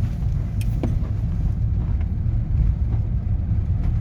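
Motorhome driving: a steady low engine and road rumble, with a few faint clicks or rattles in the first second.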